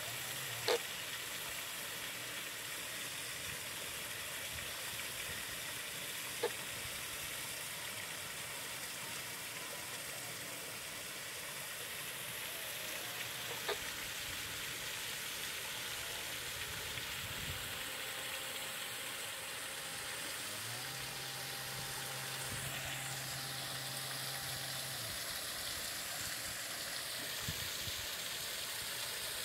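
Steady outdoor background hiss, broken by a few sharp clicks and, in the second half, a faint low hum lasting a few seconds.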